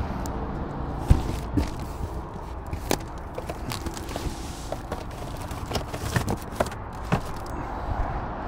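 A cardboard fish shipping box being handled and set down in an SUV's rear cargo area: scattered knocks and rustles over a steady low hum.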